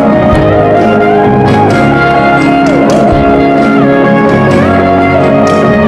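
Instrumental music without singing: sustained held chords, with a few notes that slide up and down in pitch.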